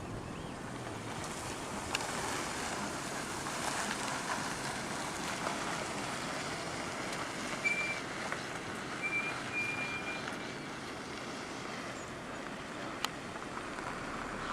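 Floodwater of the Burdekin River rushing steadily. The noise swells during the first few seconds and eases near the end. A few short, high chirping tones come through in the middle, and there is a sharp click near the end.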